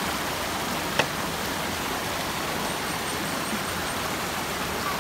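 Mountain stream rushing over rocks in small rapids, a steady, even rush of water, with one sharp click about a second in.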